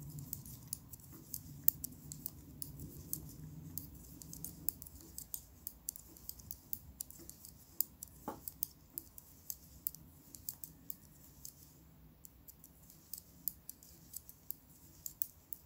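Knitting needles clicking lightly and irregularly, a few small clicks a second, as stitches are worked along a row.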